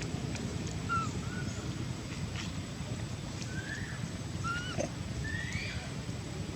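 Several short, high chirping calls, each rising or bending in pitch, scattered over a steady low background rumble.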